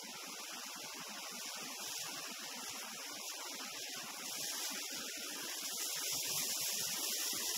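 Wind and road noise on a roof-mounted camera of a moving vehicle on a wet road: a steady hiss with no distinct events, growing louder about four seconds in.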